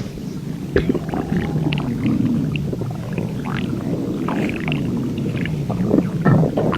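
Human stomach growling without a break: a low rumble that wavers in pitch, with squeaky rising and falling gurgles over it and a couple of sharp pops, one about a second in and one near the end.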